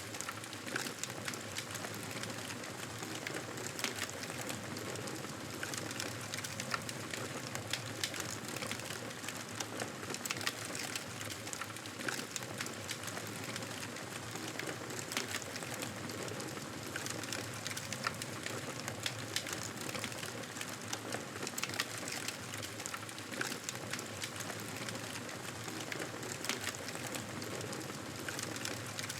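Wood fire crackling in a fireplace: a steady hiss with frequent irregular pops and snaps.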